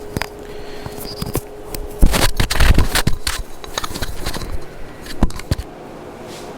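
Clicks, scrapes and knocks of things being handled and moved, with a loud cluster of thumps and rustling about two seconds in.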